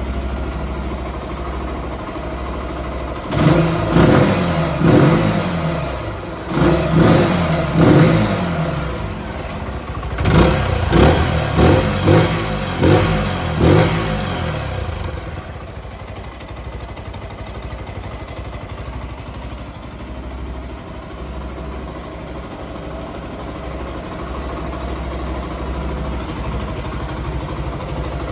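Zontes ZT125 G1 single-cylinder 125 cc engine through its stock exhaust, idling, then revved in a series of throttle blips, several longer revs followed by about five quick ones, before settling back to a steady idle.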